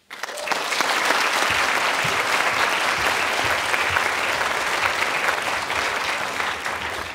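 Theatre audience applauding, starting abruptly and holding steady, then beginning to die away near the end.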